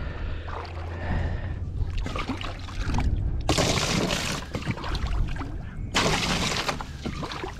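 Water sloshing and pouring as a bucket live well is filled, with two louder rushes of pouring water, one about halfway through and one near the end.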